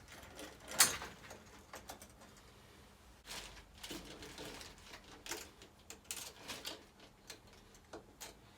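Clicks, knocks and rustles of a hose and its fitting being handled and connected to a MagnaCleanse flushing unit, with one sharp click about a second in.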